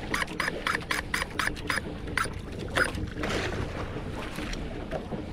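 Tridentech Silver Rays 300 fishing reel clicking as a hooked fish is fought, about four sharp ringing clicks a second, slowing and stopping after about three seconds. Under it runs the steady low hum of the boat's engine, with a brief rush of wind or water noise.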